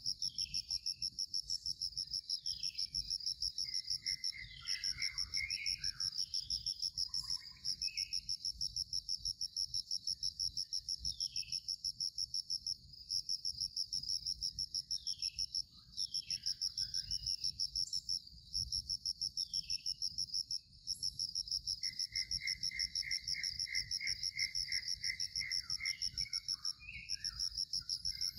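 Loud insect song: a steady, rapidly pulsing high-pitched buzz that breaks off briefly a few times. Short falling chirps from another animal cut in now and then, and a second, lower pulsed trill runs for a few seconds near the end.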